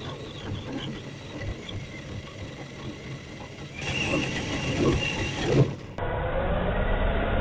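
Traxxas TRX-4 High Trail Edition RC crawler's electric motor and gears running, a whine over mechanical clatter. The sound changes abruptly about four and six seconds in, and is loudest between them.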